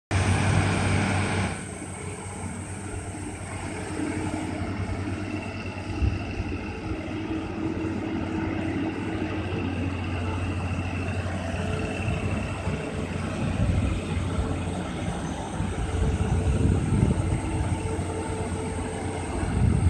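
Heavy road traffic on a hairpin bend: a low, steady engine drone from a tanker lorry and a bus taking the curve. The noise is louder for the first second and a half.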